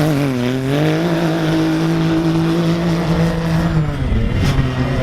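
A vehicle engine revving up, held at steady high revs for about three seconds, then dropping off near the end.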